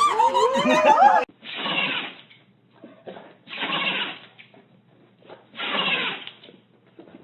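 Intro music ends about a second in. Then an animal sneezes three times, each sneeze short and noisy, about two seconds apart.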